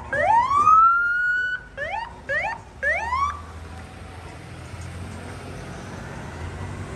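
Rescue ambulance siren sounding in rising whoops: one long sweep that climbs and holds for about a second and a half, then three short rising chirps, each cut off sharply. It stops a little over three seconds in, leaving low vehicle engine and traffic noise.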